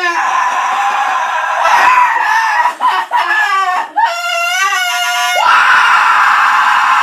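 A loud, drawn-out human scream, strained and wavering in pitch, with a few brief breaks about a third of the way through.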